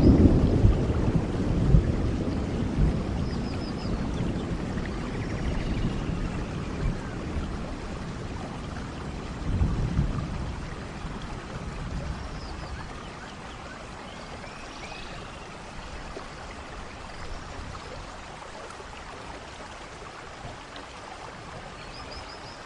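Heavy rain falling steadily on garden foliage. A low rumble is loudest at the start, swells again about ten seconds in, then dies away, leaving the rain quieter. A few faint high chirps sound over it.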